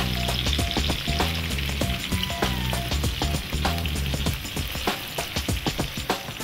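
Food frying in hot oil in a pan: a steady sizzle with small crackles. A quiet backing music track runs underneath.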